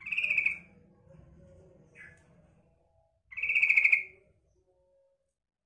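Female yellow-vented bulbul (trucukan) giving two short rattling calls about three seconds apart, the second longer, with a faint short note between them.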